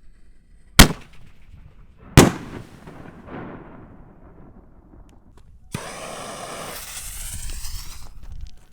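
Two loud firework bangs from 5-inch canister shells about a second and a half apart, each trailing off in an echo, then a sudden dense hissing crackle that lasts about two and a half seconds.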